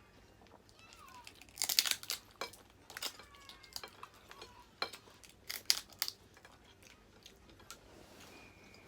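Seafood shells being cracked apart and chewed: a loud burst of crunching and crackling about two seconds in, then scattered sharp cracks and clicks.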